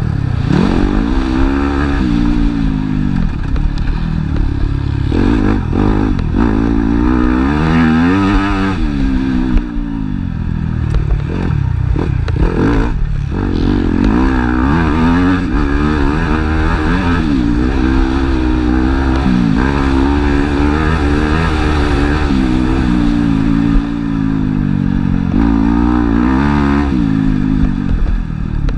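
Motocross bike engine heard on board while riding, revving up and falling back again and again as the rider accelerates, changes gear and slows for turns, with a few sharp drops in pitch.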